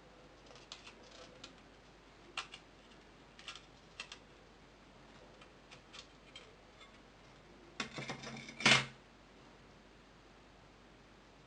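Scattered light clicks and taps of small tools and phone parts being handled during a smartphone screen repair. About eight seconds in there is a quick run of clicks ending in one sharp, louder click, like a part snapping loose.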